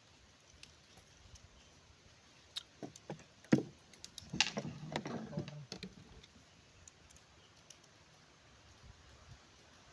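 A few sharp clicks and knocks, then about a second of close rustling and clattering, like gear being handled.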